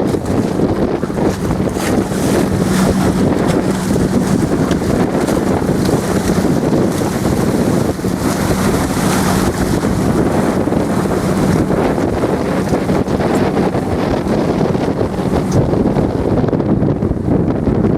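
Wind buffeting the microphone on open water, with waves and a faint low steady hum through the first two-thirds.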